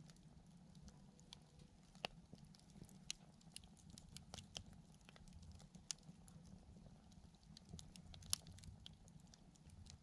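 Wood campfire crackling quietly, with scattered sharp pops at irregular intervals, one louder pop near the end.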